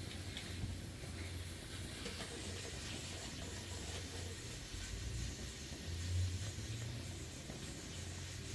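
Steady hiss of falling rain, with a faint low rumble underneath.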